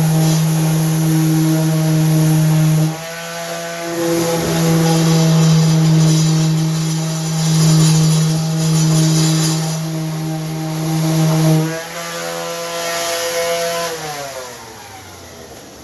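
Electric power tool motor running at a steady high speed with a pitched hum; the hum dips briefly about three seconds in and again near the end. It is then switched off, and its pitch falls away as it spins down.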